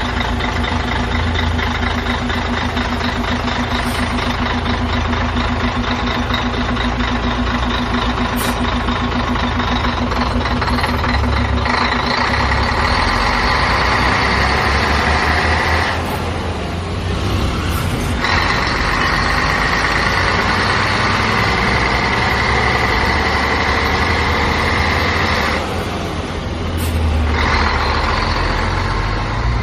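Large diesel bus engine running steadily, with a steady high-pitched whine joining about twelve seconds in. The sound briefly thins out twice, in the middle and near the end.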